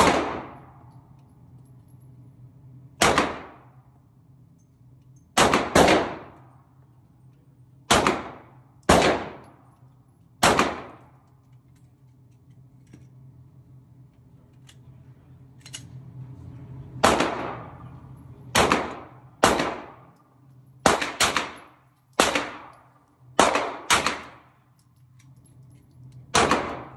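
9mm Glock pistols fired at an indoor range: about fifteen single shots, each ringing off the walls, in uneven strings with a gap of several seconds in the middle.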